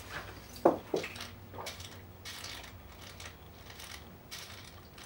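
Glassware being handled on a wooden bar top: two sharp clinks of a glass bottle and shot glass about a third of a second apart just over half a second in, then a softer knock, then faint handling sounds.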